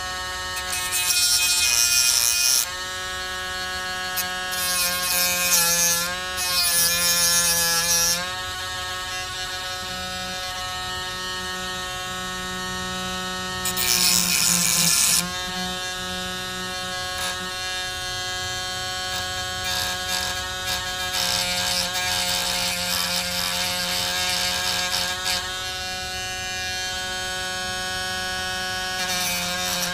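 Cordless battery-powered rotary tool spinning a small abrasive cutoff disc, grinding the edges of metal tabs smooth. A steady motor whine that dips in pitch and gains a harsh grinding hiss each time the disc bites: about a second in, again from about five to eight seconds in, and around fourteen seconds in.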